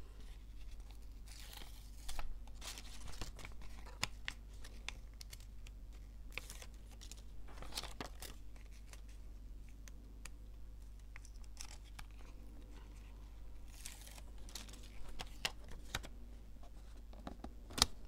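Paper handled close up while being stuck down: light rustling and crinkling with scattered small clicks and a few louder crackles, over a steady low hum.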